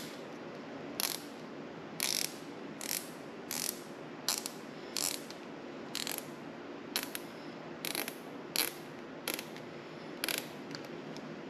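Plastic zip tie being pulled tight through its ratchet head in a dozen or so short tugs, each one a brief ratcheting zip.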